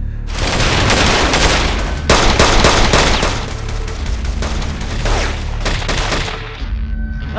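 Heavy automatic gunfire: several weapons firing together in a long, continuous fusillade, with rounds tearing into a car's body and seats. It stops about a second before the end.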